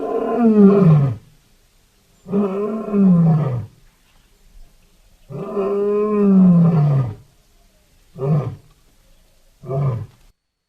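Lion roaring: three long, deep roars that each fall in pitch, followed by two short grunts near the end, the usual close of a lion's roaring bout.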